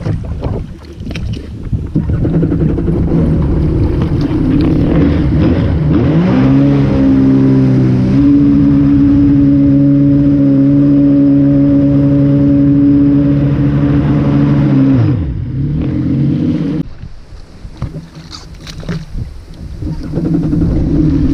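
Jet ski engine running under way: its pitch climbs about six seconds in and holds a steady high whine at speed. Around fifteen seconds it drops as the throttle comes off, runs lower and rougher for a few seconds, and picks up again near the end.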